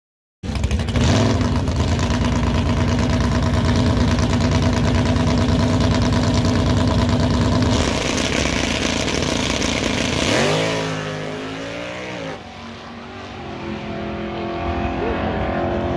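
Race-built 426 Hemi V8 of a 1965 Dodge Coronet Stock Eliminator car held at a steady high rpm on the starting line. About eight seconds in it launches, and from around ten seconds its pitch climbs and drops with the gear changes as it pulls away down the drag strip and fades.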